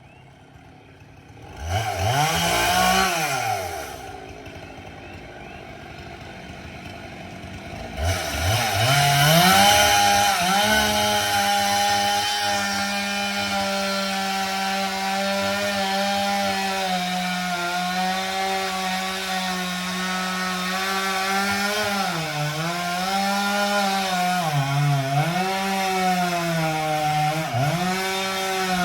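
Chainsaw blipped up and back down once, idling, then held at full throttle with a high steady note while cutting wood. In the last several seconds its pitch dips repeatedly as the chain bogs down under load in the cut.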